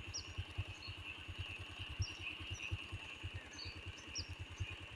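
A small engine idling with an even, rapid low putter, over a steady high insect drone and scattered short bird chirps.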